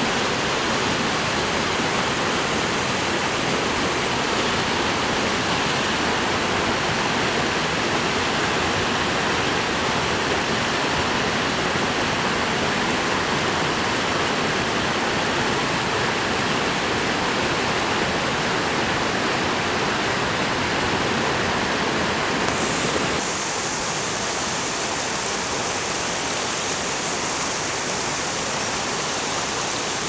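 Mountain river rushing over boulders in white-water rapids, a steady loud roar of water. About two-thirds of the way through it turns a little quieter and changes tone.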